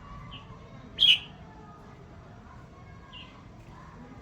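A bird giving a few short, sharp chirps, the loudest about a second in, with two fainter ones before and after.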